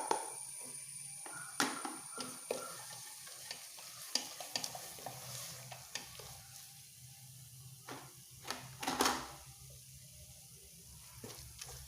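A spoon stirring powdered spices into sizzling masala in a cooking pan, with scattered clicks and scrapes of the spoon against the pan and a longer scrape about nine seconds in.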